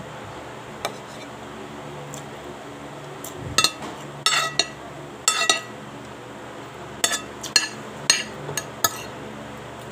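Metal spoon clinking against a plate while scooping food: about ten short, sharp, ringing clinks, most of them bunched between about three and a half and nine seconds in.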